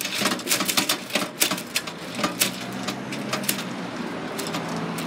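Level crossing barrier raising: a quick, irregular run of sharp clicks and rattles over a low steady mechanism hum, the clicking dying away about three and a half seconds in and the hum easing soon after.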